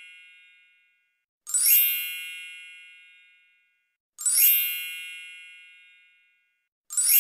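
A bright chime, a quick upward run of many high bell-like tones that rings on and slowly fades. It sounds three times, about every 2.7 seconds.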